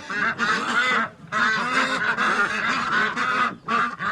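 A flock of ducks and geese calling excitedly all at once, many overlapping honks and quacks, with a short lull about a second in.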